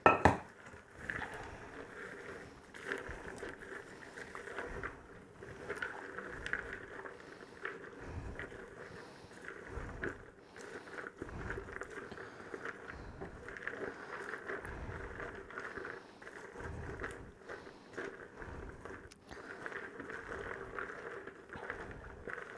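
Popcorn and nuts being stirred in a bowl with a spoon as a sticky brown-sugar sauce is mixed in: a continuous rustling crackle with small clicks and scrapes, and a few dull knocks against the bowl.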